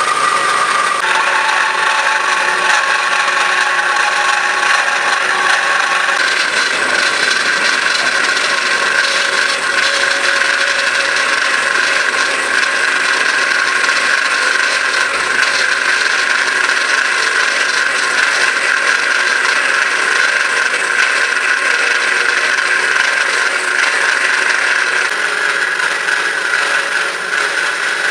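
Semi-automatic metal-cutting band saw running steadily, its motor and blade making a constant mechanical hum with a slight rattle; the pitch shifts about a second in and again around six seconds in.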